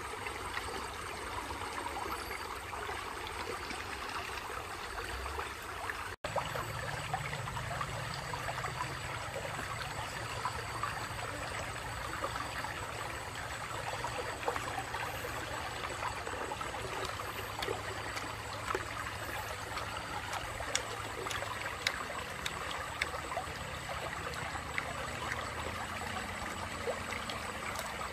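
Shallow river running over stones: a steady rush of flowing water, broken by a brief dropout about six seconds in, with scattered faint clicks in the second half.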